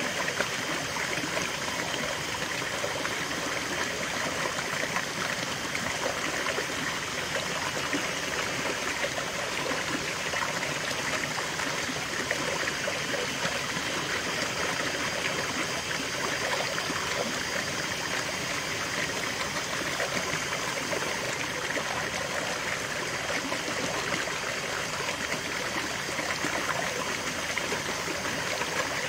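Small rocky stream: water pouring down a short cascade between boulders and splashing into a shallow pool, a steady flowing and trickling sound.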